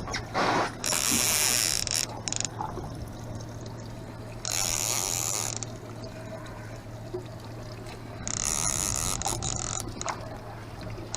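Fishing reel buzzing and ratcheting in three bursts as a hooked salmon is played on the line, over a steady low hum.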